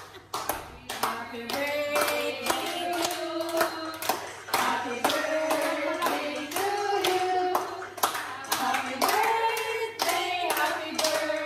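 A small group of women singing a birthday song together while clapping their hands in a steady beat, about two or three claps a second.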